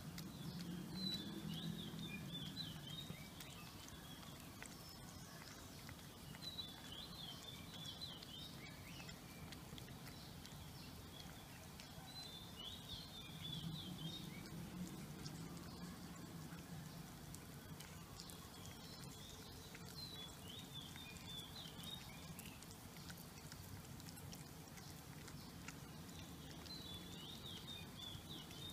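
Two cats licking and nibbling a peeled banana: faint wet licking and smacking clicks. A bird twitters in short bursts every five or six seconds behind them.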